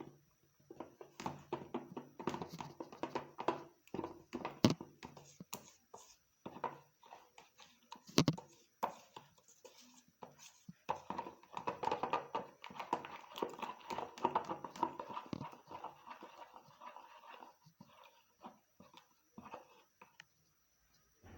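Flour and warm water being stirred together in a bowl for porridge: irregular scraping and knocking, with two sharper knocks about four and eight seconds in.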